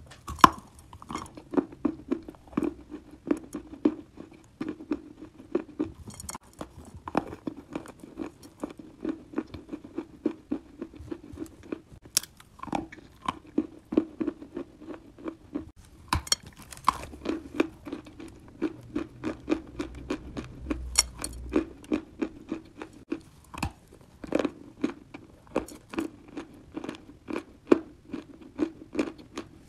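Close-up crunching and chewing of a chunk of soft edible clay: a loud bite about half a second in, then a long run of small crisp crunches about two or three a second.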